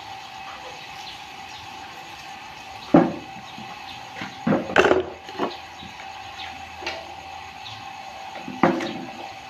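Irregular knocks and taps on wood: one sharp knock about three seconds in, a quick cluster near the middle and another knock near the end, over a faint steady hum.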